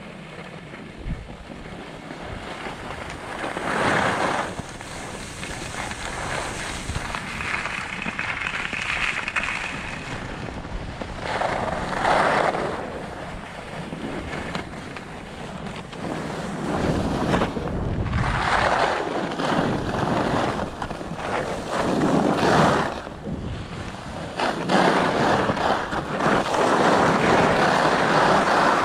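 Skis carving on a groomed piste: the edges scrape over the packed snow in surges with each turn, a few seconds apart, over wind rushing on the microphone. The scraping grows louder and nearly continuous in the last few seconds as the run steepens.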